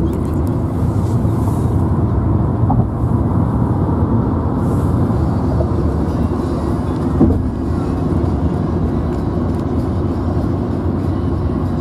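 Steady road and engine noise inside the cabin of a Skoda Rapid driving at highway speed, with a brief thump about seven seconds in.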